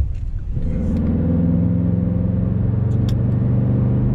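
Pickup truck engine heard from inside the cab: a low rumble, then from about half a second in a steady engine drone as the truck gets under way and runs on the road.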